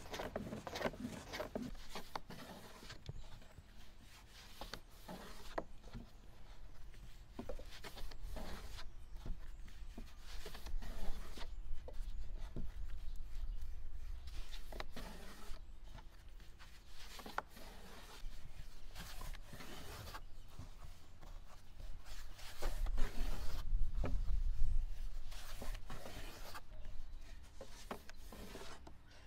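Long, thin wooden rolling pin rolling and rubbing over a sheet of dough on a floured wooden board, with many light wooden clicks and taps. A low rumble swells for a few seconds late on.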